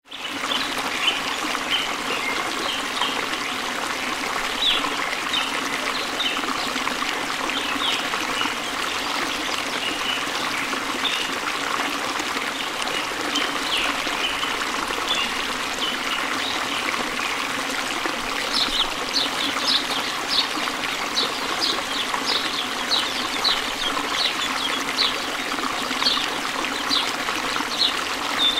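Steady trickle of running water, with ducklings peeping in short, high chirps that become more frequent and louder in the second half.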